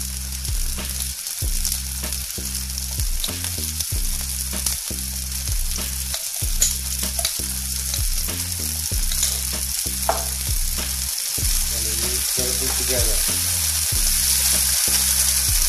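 Cherry tomatoes, garlic and olive oil sizzling steadily in a frying pan, with scattered clicks and scrapes of a spoon as pesto goes in and is stirred with a wooden spoon near the end. A low hum that shifts in pitch every second or so runs underneath.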